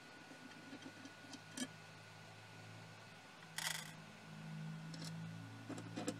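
Hands working on a show laser's metal housing: a brief scrape a little over halfway through and a few light clicks near the end, over a faint steady hum.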